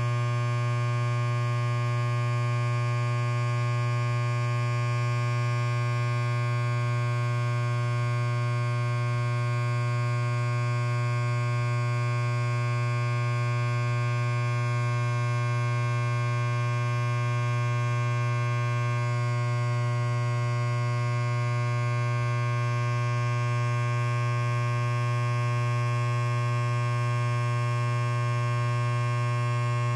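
Electric hair clipper running steadily with no load: a constant low buzz with a dense stack of overtones, never changing in pitch or level.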